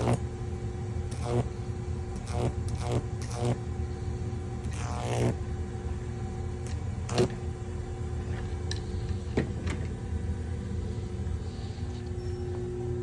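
A microwave oven transformer, switched on and putting out about 2,700 volts, hums steadily while its output arcs in short irregular bursts, about eight in all. The longest burst comes around five seconds in and the sharpest about seven seconds in.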